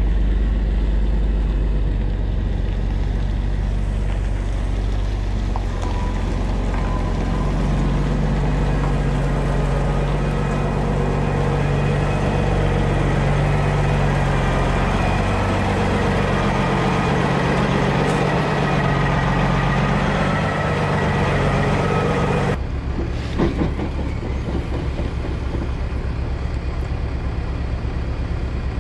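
Dump truck's diesel engine running, a steady drone whose note rises about seven seconds in and holds there, then changes suddenly to a lower, rougher running about 22 seconds in.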